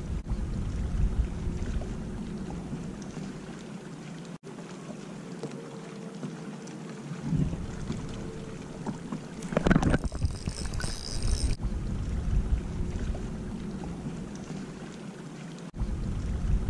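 Wind buffeting the microphone on a bass boat's deck, with water sounds and a faint steady hum underneath. About ten seconds in there is a brief louder noise, followed by a short high hiss.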